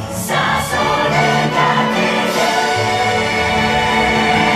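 Orchestral music with a choir singing, the drone show's soundtrack played over loudspeakers.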